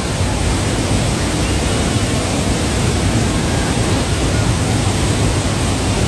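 Waterfall pouring close by: a loud, steady rush of falling water.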